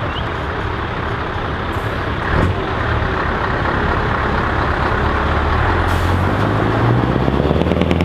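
Scania V8 truck engine running loud through an open exhaust as the truck pulls away, with a short burst of noise about two and a half seconds in. Its engine note climbs steadily in the last seconds as it accelerates.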